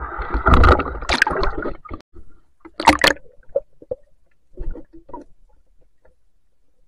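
Water splashing and sloshing as a spearfisher handles a speared fish at the surface and goes back under, with a dull rumble where the water knocks against the camera. The noise is loudest for the first two seconds, then comes as a sharp splash about three seconds in and a few smaller ones around five seconds.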